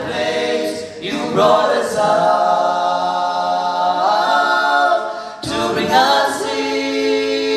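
Male vocal quartet singing a cappella in close harmony, holding chords that change every second or two, with a brief break and a fresh entry about five and a half seconds in.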